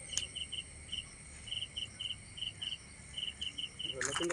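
Crickets chirping in short pulsed trills, about three a second, over a steady high insect drone. Near the end comes a quick flurry of rustling slaps as the hooked catfish thrashes on the line.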